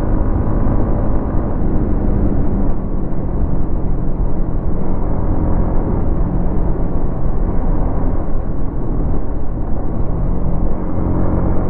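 Yamaha MT-15's 155 cc single-cylinder engine on its stock exhaust, running steadily while ridden. The engine note starts climbing near the end as it revs up.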